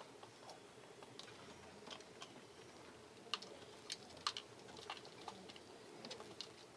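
Faint, irregular tapping clicks of pigeons pecking grain off a concrete floor, a few sharper taps between about three and four and a half seconds in.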